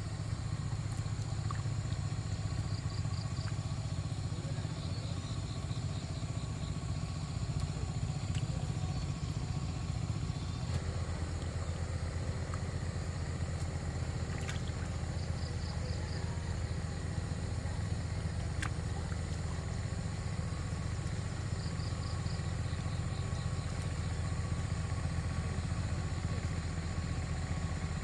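A small engine running steadily, its low note shifting about ten seconds in, with faint short high chirps repeating now and then.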